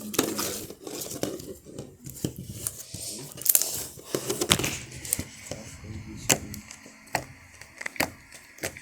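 Sticky butter slime being handled and scraped out of a bowl by hand: irregular crackling with sharp clicks every second or so.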